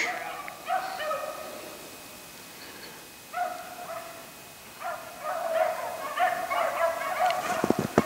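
Pack of beagles baying on a rabbit's trail, the hounds in full chase. A few separate bays come first, then the baying runs together almost without a break from about five seconds in.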